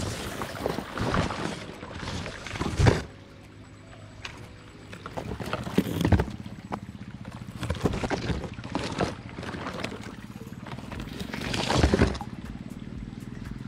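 Fast-flowing canal water gurgling and splashing against a small boat, heard from the camera riding on it. Irregular louder splashes come every few seconds.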